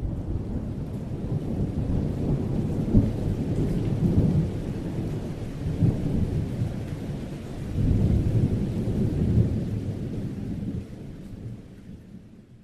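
A deep, thunder-like rumble that swells and ebbs, then fades out near the end.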